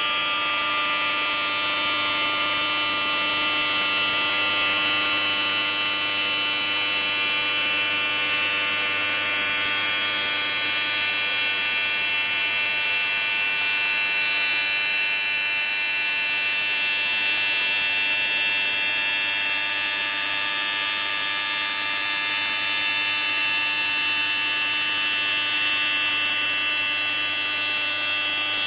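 Spindle of a CNC quartz stone router running with a steady high-pitched whine that holds one pitch throughout.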